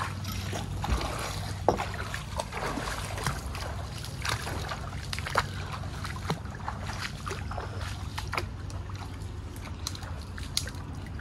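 Barefoot footsteps wading and splashing through shallow water and stepping over roots and leaf litter, with scattered sharp snaps and crackles of brush over a steady low rumble.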